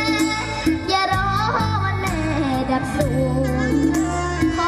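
A young girl singing into a handheld microphone over a backing track with steady bass notes and drum beats, heard through the stage's sound system.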